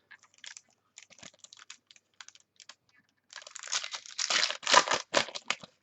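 Cards being handled with soft scattered clicks, then a trading-card pack's foil wrapper being torn open and crinkled, the loudest part, starting a little past halfway.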